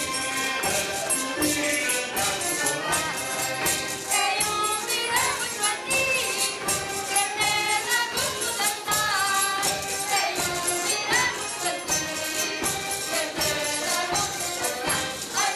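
Portuguese folk band playing a lively vira: two button accordions and a guitar carry the tune, a triangle and other percussion keep a quick, even beat, and voices sing over them.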